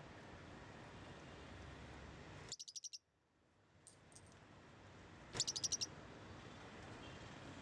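A caged parakeet chirping in two quick runs of about six high chirps each, the first about two and a half seconds in and the second about five seconds in, over a faint steady hiss.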